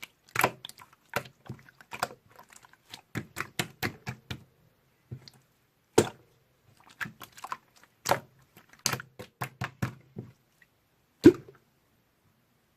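Slime being squeezed and pressed, giving a run of irregular sharp clicks and pops, with one louder pop about eleven seconds in.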